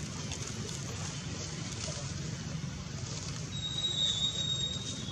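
Steady outdoor background noise with a low rumble, and a thin, high whistling tone lasting about a second and a half near the end.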